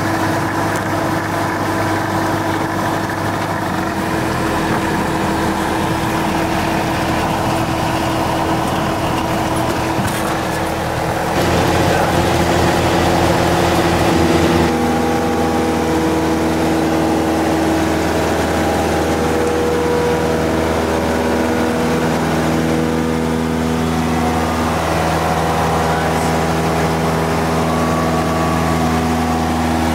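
Single-engine light aircraft's piston engine and propeller droning steadily in the cabin. The drone is louder and rougher for a few seconds about 11 seconds in.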